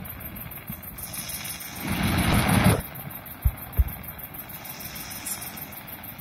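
Fireworks display heard through a mobile phone: a rushing swell of noise about two seconds in that lasts about a second, then two short dull thumps of firework bursts soon after.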